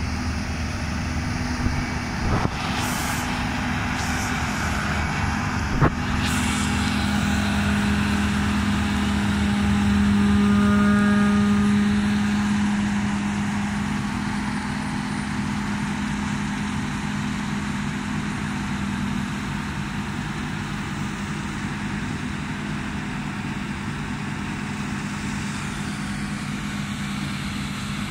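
CLAAS Lexion 660 combine harvester running steadily while cutting rapeseed, a deep engine and threshing drone that grows louder as it passes close, loudest about ten seconds in, then slowly recedes. A few sharp clicks sound in the first six seconds.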